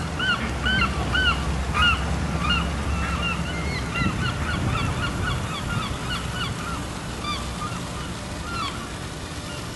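A flock of birds calling over and over, many short calls that rise and fall in pitch, overlapping, thinning out toward the end, over a low steady rumble.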